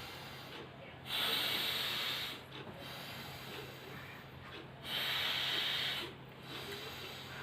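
Forceful breathing through the nose in anulom vilom (alternate-nostril breathing) pranayama. Two loud breaths of about a second each come about one second in and about five seconds in, with quieter breathing between them.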